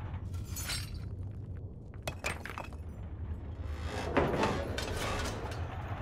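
Rocks and glassy crystals crunching, breaking and clinking as an excavator bucket digs into rubble, in several separate bursts over a steady low rumble.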